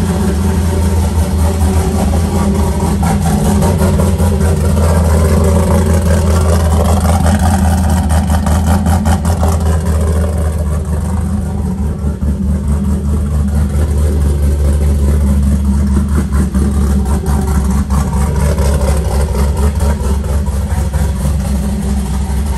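Ford Coyote V8 in an F-150 idling steadily with the hood open, a loud, even low hum with no revving.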